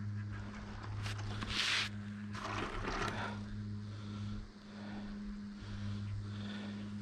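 Snow hissing and scraping under a rider's skis or board: two louder hissing scrapes come about a second and a half and three seconds in, over a low steady hum.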